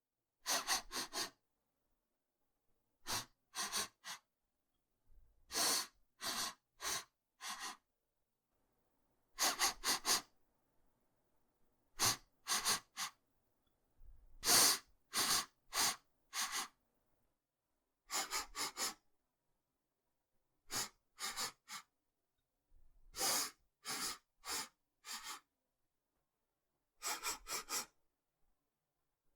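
Sniffing through the nose: quick, sharp sniffs in bursts of two to five, with a second or two of silence between bursts.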